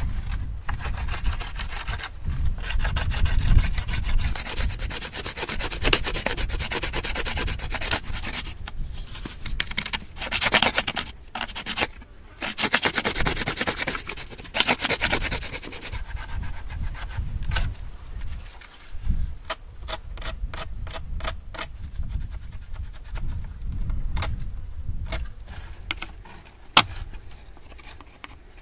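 A hand-held stone tool rubbed and scraped in repeated strokes, abrading. Later on the strokes turn short and regular, about two a second.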